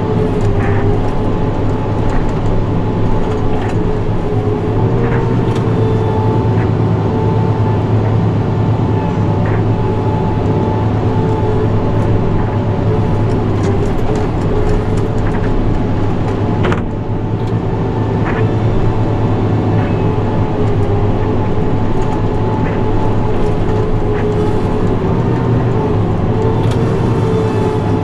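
New Holland tractor's diesel engine running steadily under load, driving a front-mounted snowblower, heard from inside the cab: a constant drone with a steady whine over it. The sound dips briefly about two-thirds of the way through.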